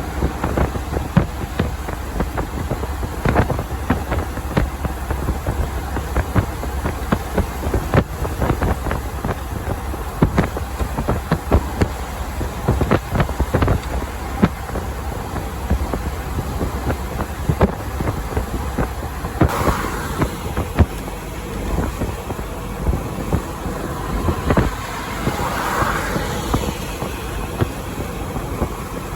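Semi-truck driving on the highway, heard from the cab: a steady low engine and road drone with frequent sharp knocks and rattles, and two brief rushing swells in the last third.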